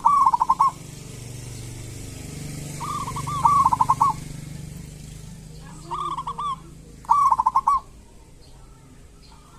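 Zebra dove (perkutut) calling in four short phrases of quick repeated notes, each under about a second and a half.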